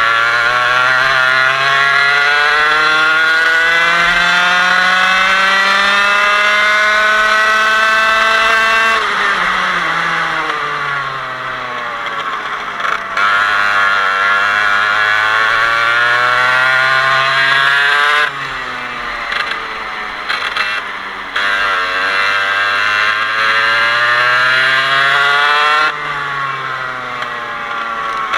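Parilla 125cc two-stroke kart engine revving up in long steady climbs of pitch and falling away sharply when the throttle is lifted, three times over: about 9 seconds in, about 18 seconds in, and near the end.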